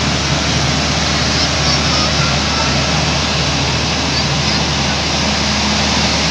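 Loud, steady rushing noise with a low hum underneath, unbroken throughout.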